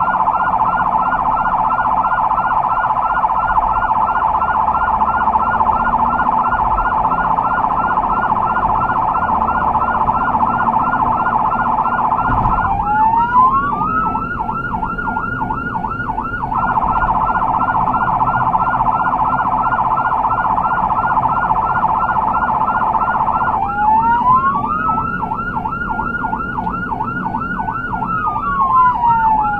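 Emergency vehicle's electronic siren sounding continuously on a fast warbling yelp. Twice it switches to a tone that glides up and holds high with a rapid flutter, the second time falling back down near the end, over low engine and road noise.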